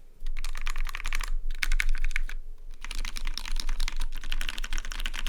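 Fast typing on a mechanical keyboard with lubed Gateron Black Ink linear switches, a 1.5 mm brass plate, an acrylic case and PBT Cherry-profile keycaps. The keystrokes come in rapid runs, with two short pauses.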